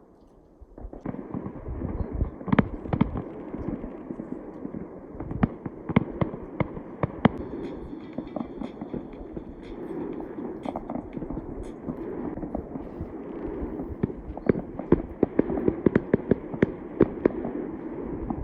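Fireworks going off: a steady rumble with many sharp bangs and crackles, starting about a second in.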